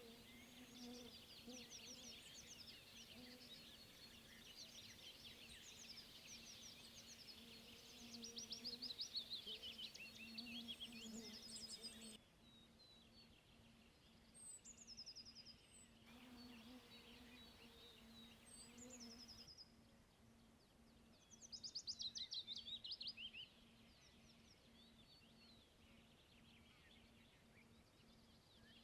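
Faint wild birdsong: small birds chirping and singing in quick trills, busiest twice, with a faint steady low hum beneath. The background changes abruptly a few times, as at edit cuts.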